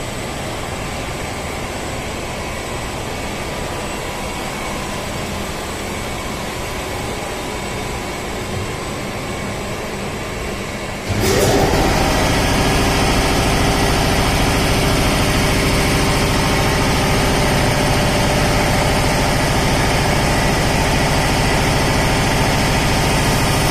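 Steady machinery noise of a PVC pipe extrusion line. A little past halfway a motor starts up with a quick rising whine, and the running noise becomes much louder and holds steady.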